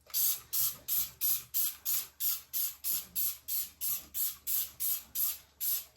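Trigger spray bottle of cleaner being pumped fast and steadily, about three short hissing squirts a second, as cleaner goes onto a sink.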